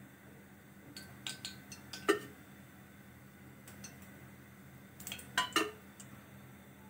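Steel ladle clinking against a stainless steel kadhai and oil container as cooking oil is ladled into the pan: a few light clinks about a second in and a pair of louder ones a little past the five-second mark.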